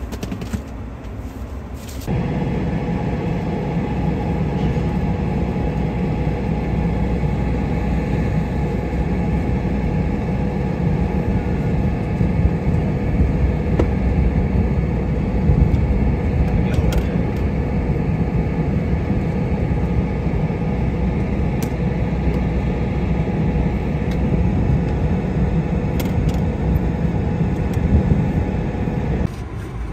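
ATR 72 turboprop engines running, a steady drone with several constant tones over it. The drone comes in abruptly about two seconds in and drops away just before the end.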